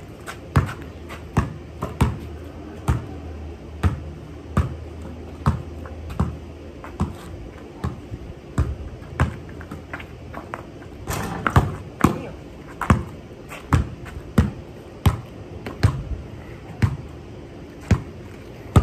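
A basketball dribbled on a concrete driveway, bouncing at a steady pace of a little more than one bounce a second.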